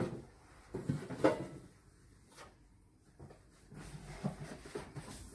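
Cookware and cardboard packaging being handled: two sharp knocks about a second in, then soft bumps and rustling of cardboard as the next boxed pot is taken out of a carton.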